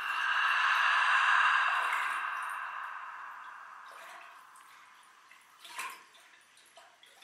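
Ambient sound texture from a recorded music track. A rushing, water-like noise with a faint steady tone above it swells to a peak about a second in and fades away over the next few seconds. It is followed by a few scattered clicks, the sharpest near the end.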